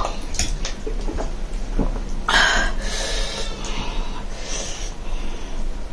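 A person breathing hard through the mouth against the burn of extra-spicy noodles. The loudest is a long hissing breath about two seconds in, with a weaker one later, and a few light clicks come before it.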